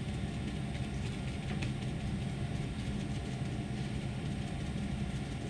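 Steady low hum of room background noise, with no clear event in it.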